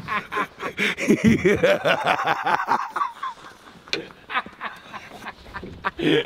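Men laughing out loud, the laughter dying down about halfway through.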